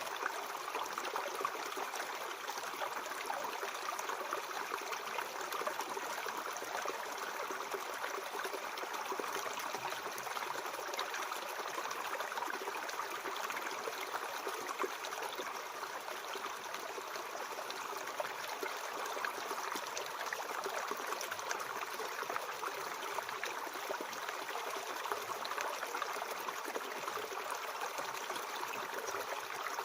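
Mountain stream flowing over rocks, a steady babbling and trickling of water.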